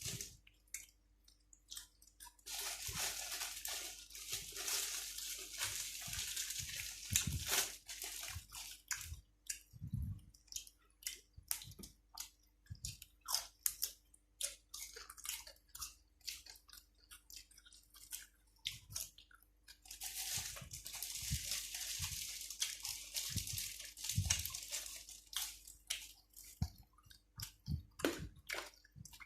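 Close-up chewing and crunching, with many short crisp crunches, while eating raw vegetables such as cabbage and long beans with spicy pork salad. There are two longer spells of dense, hissy crunching noise, a few seconds in and again about two-thirds of the way through.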